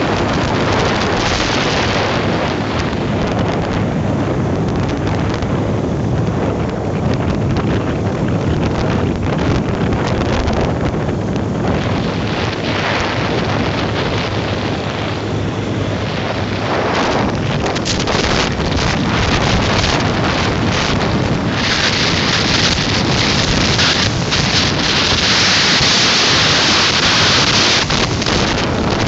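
Wind buffeting the microphone of a phone on a moving motorcycle, over the steady run of the engine and tyres on the road; the wind gets louder and harsher for the last several seconds.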